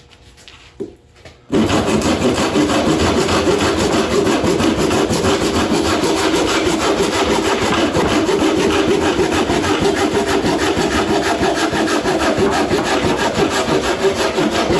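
Silky Zubat Arborist curved pruning saw, with its large aggressive teeth, cutting through a dead, dry wooden beam in steady back-and-forth strokes. The sawing starts about a second and a half in and runs on without a break.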